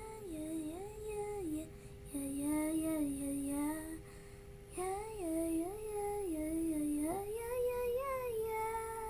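A young girl singing the song's melody with no clear words, in three short phrases with wavering, rising and falling pitch, ending on a held note.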